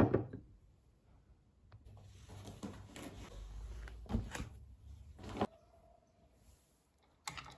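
A ceramic cup set down on a desk with a knock, then papers rustling and a book laid down with a few soft knocks, and a click near the end.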